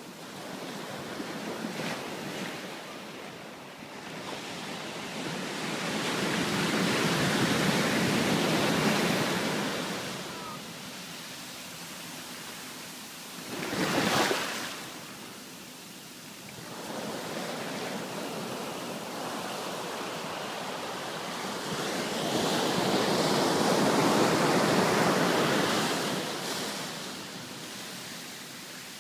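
Ocean surf breaking and washing up over the sand, its rush swelling and fading in two long surges, with a short, sharper rush about halfway.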